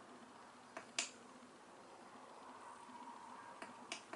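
Sharp clicks from handling a tipless Makita cordless soldering iron as it is powered up: two about a second in and two more near the end, over faint room noise.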